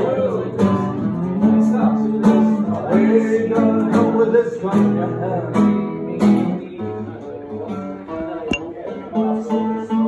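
Acoustic guitar strummed in steady chords, with a regular strumming stroke under sustained ringing notes.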